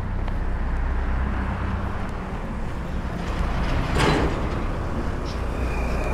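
Road traffic: a steady low engine rumble, with a brief loud whoosh about four seconds in and a short high tone near the end.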